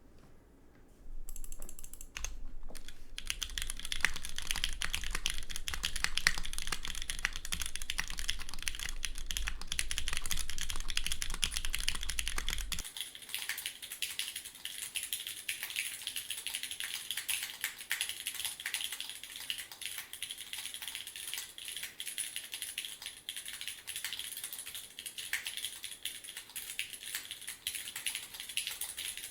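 Continuous fast typing on a Geon Works F1-8X v2 gasket-mount TKL mechanical keyboard with an aluminum plate, lubed Gateron Milky Yellow Pro linear switches and GMK keycaps: a dense stream of key clacks starting about a second in. A low rumble sits under the typing for the first half and stops about 13 seconds in.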